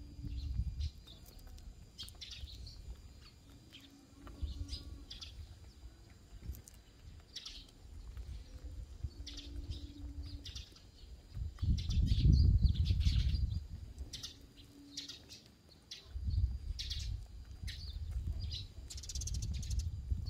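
Eurasian tree sparrows chirping, short high chirps scattered throughout, with a few soft low clucks from foraging hens. Bursts of low rumble come and go, loudest about twelve seconds in.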